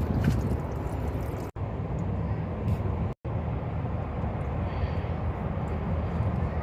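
Steady low rumbling background noise, cut off abruptly twice for a split second, about one and a half and three seconds in.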